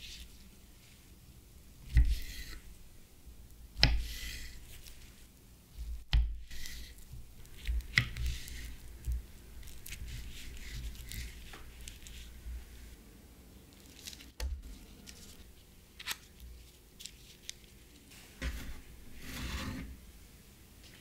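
Knife slicing a peeled banana on a wooden cutting board: soft, squishy cuts through the fruit and several sharp taps of the blade against the board.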